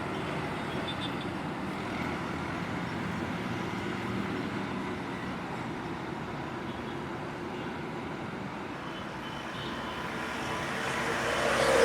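Steady highway traffic noise, with a vehicle approaching and growing louder near the end.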